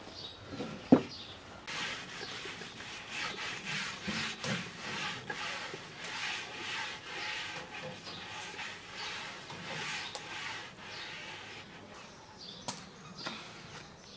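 Hands rubbing back and forth over the surface of a round wooden dough board, a couple of quick strokes a second. A single sharp wooden knock comes about a second in, and two light clicks near the end.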